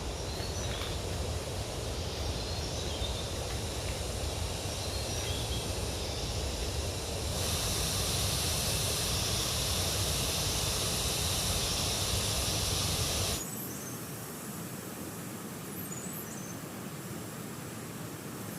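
Steady outdoor background noise with a few faint bird chirps. The sound changes abruptly twice: a high hiss comes in about seven seconds in, and the low rumble drops away suddenly about thirteen seconds in.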